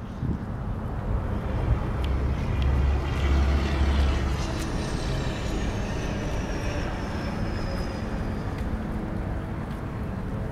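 Outdoor background noise with a passing vehicle: a low rumble swells and fades about three seconds in, and a high whine falls in pitch over several seconds.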